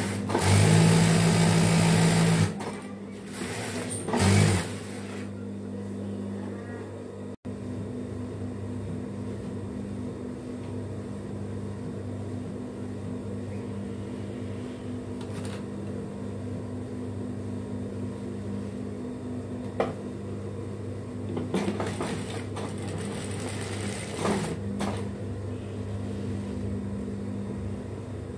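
Industrial lockstitch sewing machine stitching a fabric strip in runs: one loud run of about two seconds at the start, a short one a couple of seconds later, and more short runs near the end. A steady low hum carries on between them.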